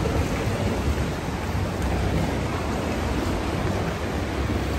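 Sea water washing and surging inside a sea cave around a boat: a steady noisy rush with a low rumble.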